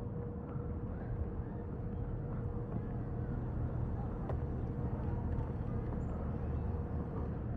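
Outdoor ambience: a steady low rumble like distant traffic, a faint steady hum and scattered faint chirps.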